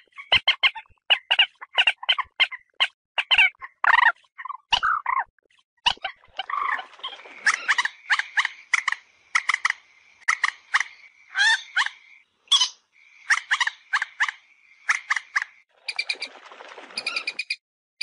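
Common moorhens giving their fighting call: rapid runs of short, sharp clucking notes, tumbling one after another. For several seconds in the middle a steady high tone sits beneath the calls.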